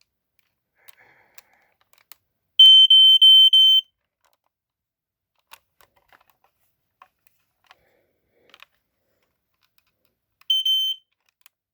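Lifesaver 0981 smoke detector sounding its high-pitched alarm tone in a quick run of pulses for a little over a second, then a short blast near the end, with faint handling clicks in between.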